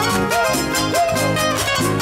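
A live band playing salay dance music: a steady dance beat under a melody whose notes bend up and down in pitch.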